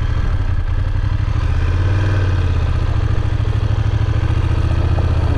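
BMW F850 GS parallel-twin engine running steadily at low revs as the motorcycle rolls slowly over a rough, loose road.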